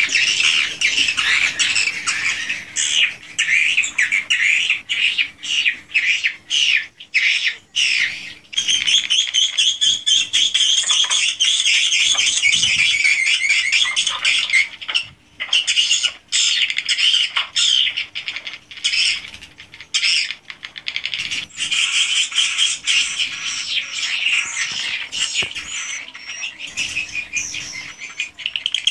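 A colony of edible-nest swiftlets calling inside a swiftlet house: many birds chirping and twittering at once in high, dense chatter. It comes in quick spurts with short breaks for the first eight seconds or so, then runs almost without a break.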